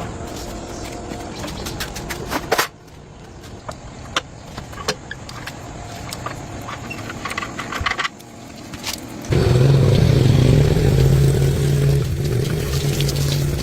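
Scattered clicks and knocks of workshop handling, then a motor starts abruptly about nine seconds in and runs with a loud, steady drone.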